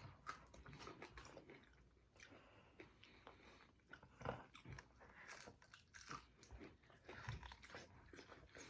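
Faint chewing and biting of chicken wings close to the microphone: a scatter of soft, irregular mouth clicks.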